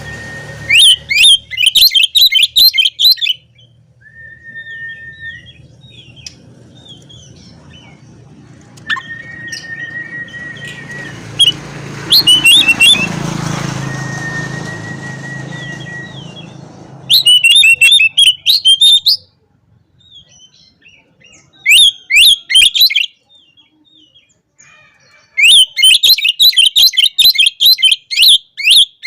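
Oriental magpie-robin singing energetically: loud bursts of fast, high chattering phrases, with several long, level whistled notes in the quieter stretch between them. A low background rumble runs under the first half.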